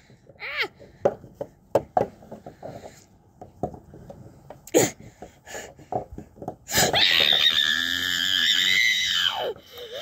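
Plastic animal figurines knocking and tapping on wooden deck boards. About seven seconds in, a child's long high wail is held for nearly three seconds, then falls away in pitch.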